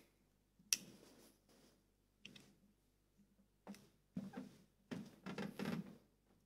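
Quiet room with scattered movement noises as people stand and move about: a sharp click less than a second in, then a few soft knocks and shuffles.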